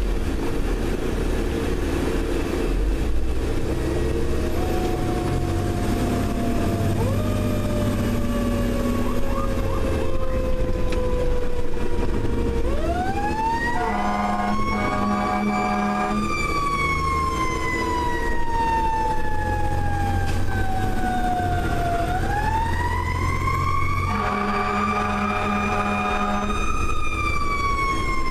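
Federal Q mechanical siren winding up and slowly coasting back down several times, heard from inside the fire engine's cab. Air horn blasts sound twice while the siren is at its peak, over a steady engine rumble.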